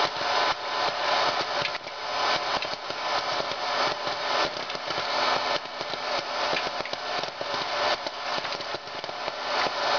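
Hot-air popcorn maker running, its fan blowing steadily while kernels pop and rattle in the chamber with frequent, irregular sharp pops.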